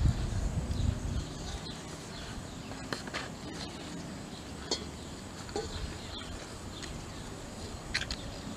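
A Rottweiler eating a soft cake: scattered wet chewing and lip-smacking clicks, with low thumping in the first second as it works the cake in and out of a steel bowl.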